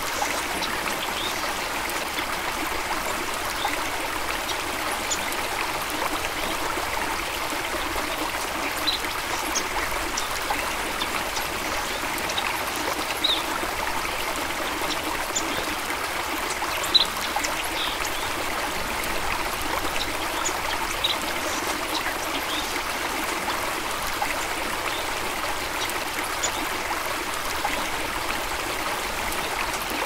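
A stream flowing steadily, with a continuous rush and trickle of water. Scattered brief, high bird chirps sound over it.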